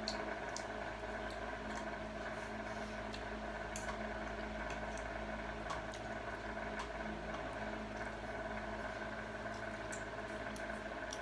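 Eating sounds: spaghetti slurped and chewed, with light scattered clicks of forks on a plate and bowl, over a steady mechanical hum in a small room.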